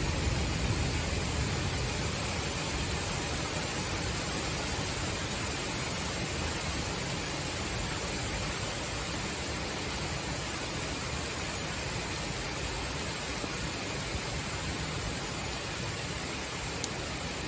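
Heavy summer rain falling steadily, an even hiss of downpour with no thunder heard; a single short click near the end.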